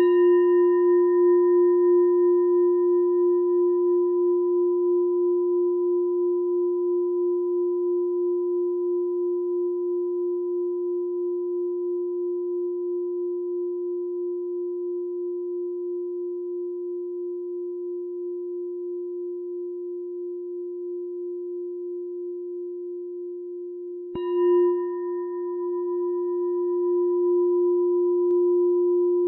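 A meditation bell struck twice, about 24 seconds apart. Each strike rings on for a long time and fades slowly, with a gentle wavering pulse in the tone.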